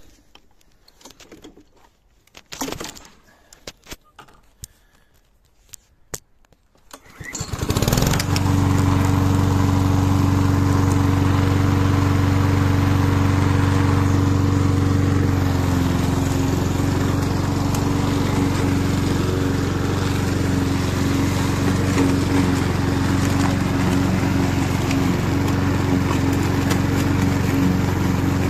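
Petrol roller lawn mower engine being started: a few seconds of clicks and knocks, then the engine catches about seven seconds in, revs up briefly and runs steadily. Its pitch settles a little lower about halfway through.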